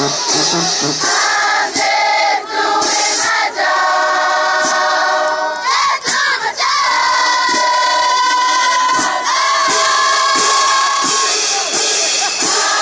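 A group of marching band members singing together in the stands, holding long notes, over crowd noise.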